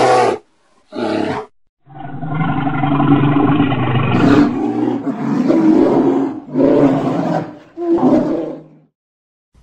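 Bear growling: a short growl about a second in, then one long drawn-out growl of about four seconds, followed by two shorter growls near the end.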